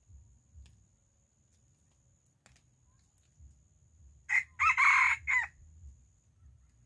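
Rooster crowing once, a short crow of about a second in three broken parts, starting a little past the middle.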